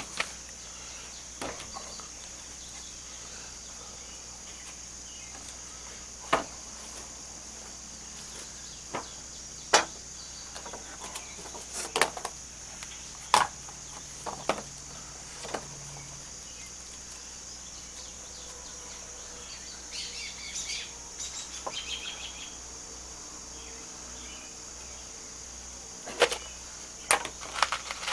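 Steady high-pitched drone of insects, with scattered sharp knocks and clicks throughout and a short run of chirps about two-thirds of the way through.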